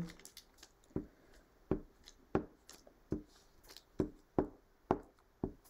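Glue stick being rubbed in strokes over a sheet of paper on a desk, each stroke giving a short knock: about eight knocks, a little under a second apart.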